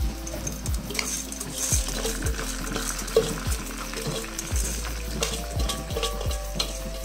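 Washed raw rice poured from a steel bowl into a metal wok, the grains hissing against the pan, with short knocks and scrapes of a metal spatula and bowl on the wok every half second or so.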